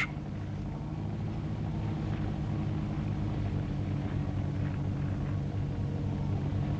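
Boat engine running steadily: a low, even drone of several tones that grows slightly louder.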